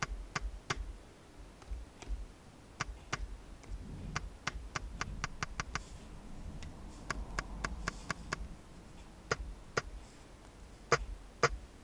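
Small sharp clicks and taps from working a Synthstrom Deluge's controls: its select knob turned in clicky steps and its pads and buttons pressed, irregularly, with a quick run of clicks about halfway through.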